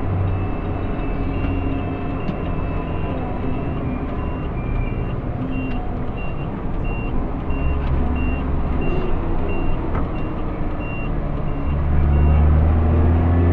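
JCB Fastrac 3230 Xtra tractor driving on the road, heard from inside the cab: steady engine and drivetrain noise, with a deeper drone swelling about eight seconds in and again near the end. A short high cab beep repeats about every two-thirds of a second and stops around eleven seconds in.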